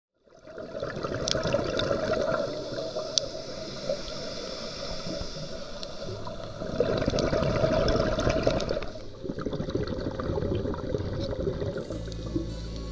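Muffled underwater sound picked up through a waterproof camera housing: a steady rushing of water with scattered sharp clicks.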